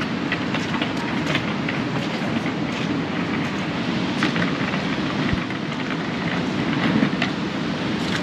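City ambience: a steady low rumble with many small clicks and rattles scattered through it, like a train or heavy traffic running.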